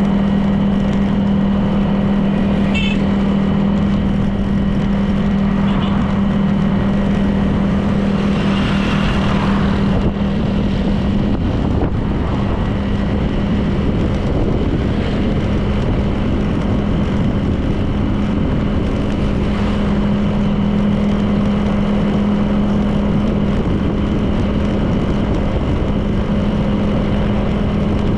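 Honda PCX 160 scooter's single-cylinder engine running at a steady cruise, with wind and road noise.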